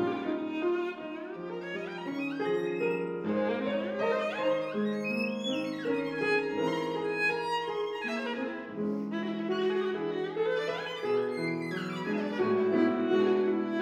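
Violin and piano playing a classical duo piece, the violin carrying the line over the piano with quick changing notes and several sweeping runs up and down.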